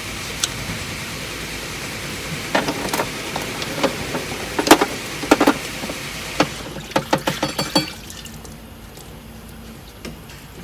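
A string of sharp clicks and knocks, uneven at first and then a quick run of about half a dozen, over a steady hiss that drops away about eight seconds in.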